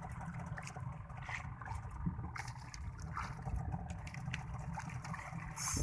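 Water lapping and sloshing against the hull of a small boat at sea, over a steady low rumble of wind on the microphone, with scattered light clicks. A short hiss comes just before the end.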